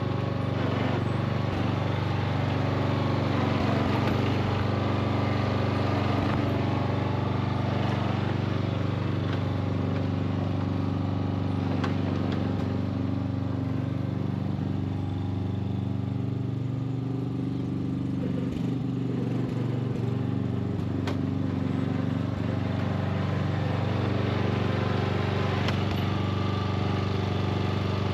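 Ride-on lawn tractor's engine running steadily while it pulls a loaded garden trailer, its note dipping briefly a little past the middle, with a few light knocks.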